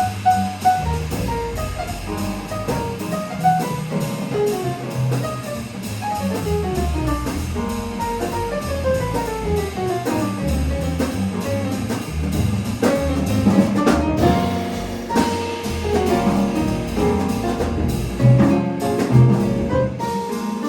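Jazz piano trio playing: acoustic piano, drum kit and double bass together, with quick runs of notes falling in pitch in the middle of the passage.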